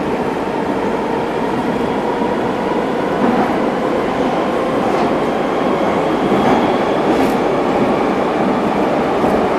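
Metrowagonmash 81-740/741 'Rusich' metro train heard from inside the car while it runs through a tunnel: a steady, loud rumble of wheels and running gear on the rails, with a faint high whine above it.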